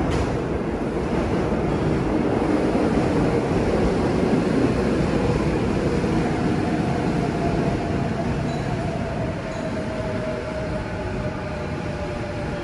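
Seoul Subway Line 4 electric train pulling into the station: a rumble that builds to its loudest around the middle and then eases as the train slows, with a faint steady whine coming in about halfway through and holding to the end.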